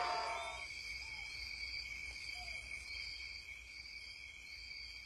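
Forest insects calling: a steady high buzz, with a higher chirp pulsing a little under once a second. Crowd and singing fade out in the first moment.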